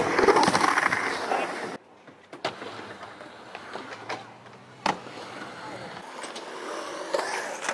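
Skateboard wheels rolling on ramps, loud for the first two seconds, then stopping suddenly and giving way to quieter rolling with a few sharp clacks of the board.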